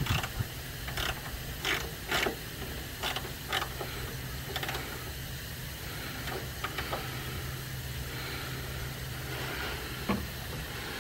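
Hand spanner or ratchet clicking in short, irregular strokes as a small 10 mm nut on a suspension ride-height sensor is nipped up by hand. The clicks thin out after about five seconds, over a steady low hum.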